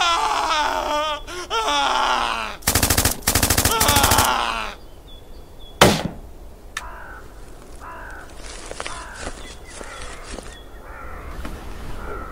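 Battle sound effects: a man's voice crying out with a wavering pitch, then two rapid machine-gun bursts, then a single rifle shot about halfway through. Crows caw in the quieter second half.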